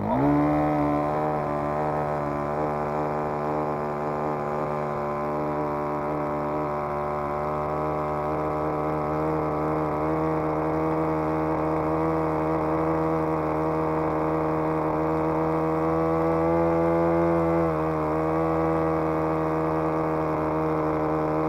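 Model aircraft engine in an RC Hurricane, run up on the ground: it revs up sharply at the start, then runs steadily at high revs with a small shift in pitch late on.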